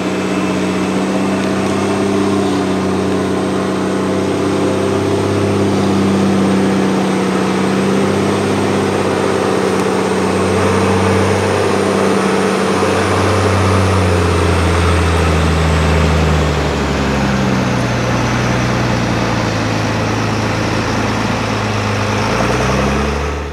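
Truck-trial vehicle's engine running steadily at varying revs, its note shifting several times.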